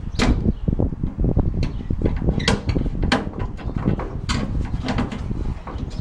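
A hand screwdriver working a fastener in a loose diamond-plate metal step panel: irregular metallic clicks and knocks as the plate shifts under the tool.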